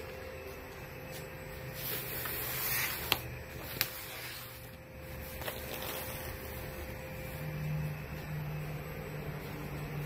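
Digital CNC flatbed cutting machine running: a steady mechanical hum with a faint whine, and two sharp clicks less than a second apart about three seconds in.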